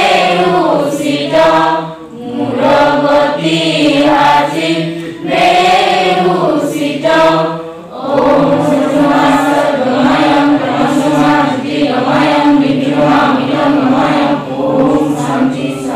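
A group of men, women and children chanting a devotional prayer together in unison, in long phrases with short breaks about 2 and 8 seconds in.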